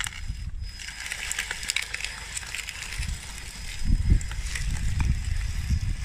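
RC Cat D6T bulldozer's 3D-printed plastic track chains crawling through wet dirt and gravel, with irregular crunching and clicking over a low, uneven rumble.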